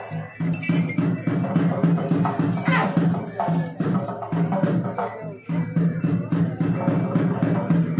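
Music with a steady percussion rhythm: a low held tone that drops out and returns in time with quick repeated strikes.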